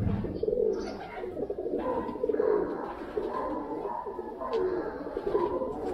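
Birds cooing: a steady run of low, overlapping calls from several birds.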